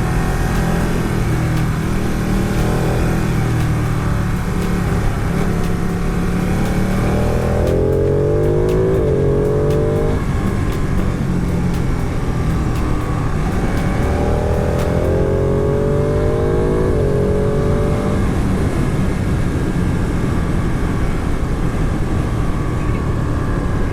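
Motorcycle engine heard from the rider's onboard camera, pulling up through the revs in two long rising climbs, one a third of the way in and one past the middle, over steady wind rush.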